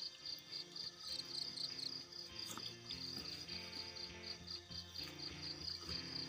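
An insect chirping in a fast, even pulse of about five chirps a second, with soft background music underneath.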